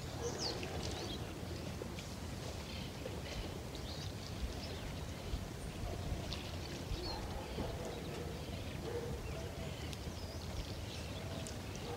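Faint, scattered bird chirps over a steady low background hum of outdoor noise.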